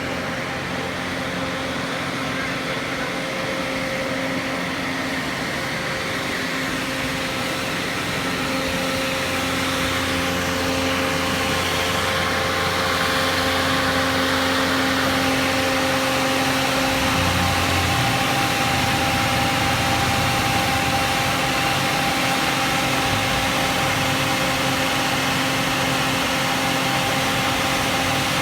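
An engine running steadily, with a constant hum that gets slightly louder in the second half.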